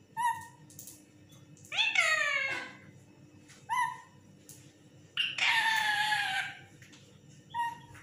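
Lutino Indian ringneck parakeet calling five times, every two seconds or so. Short calls alternate with two longer ones: one falling in pitch, and a harsh, drawn-out one a little past halfway.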